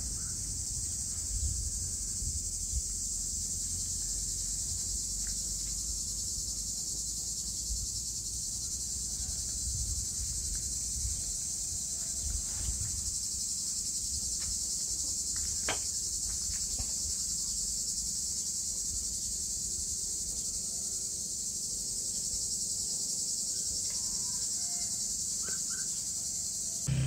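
A steady, high-pitched chorus of insects going on without a break, with a low rumble underneath and a few faint clicks, one sharper click about halfway through.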